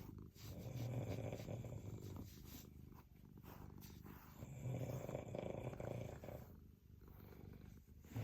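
A sleeping person snoring: two low rumbling snores, each about two seconds long, about four seconds apart, with quiet breaths between.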